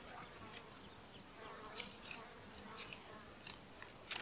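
Pages of a small Bible being leafed through: a few short, soft papery rustles over a faint steady background.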